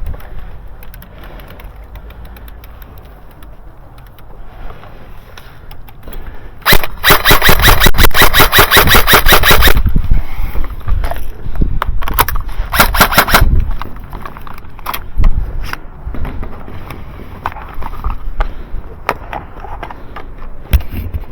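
Airsoft gun firing full-auto: a rapid burst of about three seconds, then a shorter burst a couple of seconds later, with scattered single shots after.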